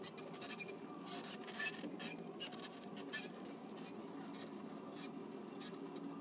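Shopping cart rolling over a hard store floor: a steady rolling rattle from the wheels and wire basket, with scattered light clicks and ticks.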